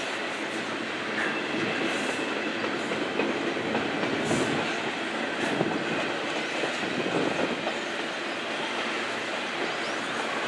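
Double-stack intermodal freight train's container-laden well cars rolling past: a steady rumble of steel wheels on rail, broken by irregular clicks and clacks of wheels over rail joints.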